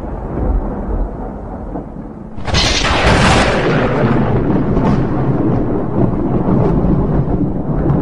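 Thunder: a low rumble, then about two and a half seconds in a sudden loud crack of thunder that rolls away in a long, slowly fading rumble.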